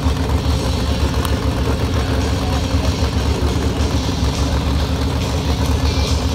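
Burnout car's engine idling with a steady low rumble.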